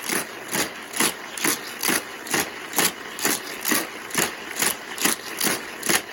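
Motorized booster of a Hot Wheels track running, with a regular whoosh about twice a second as a toy car is flung through its spinning wheels again and again around the loop.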